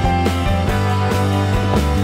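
Background music with a pulsing bass line and drum hits.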